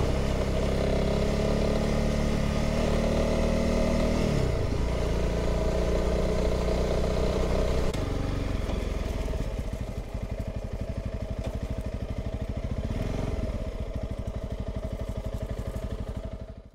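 Honda CRF300 Rally's single-cylinder four-stroke engine running steadily under way. About four seconds in it drops in pitch as the throttle eases. From about eight seconds in it goes quieter and slows to an even, low-revving beat as the bike rolls slowly into a clearing, with one brief blip of throttle.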